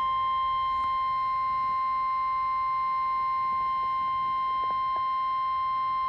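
NOAA Weather Radio warning alarm tone: a steady, loud single-pitch tone near 1050 Hz that sounds without a break. It is the attention signal that comes before a National Weather Service warning is read.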